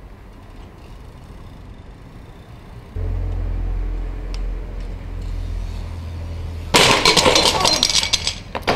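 A steady low rumble, then, about two seconds before the end, a loud clatter of sharp knocks as a skateboard crashes down on cobblestones in a fall and rattles on briefly.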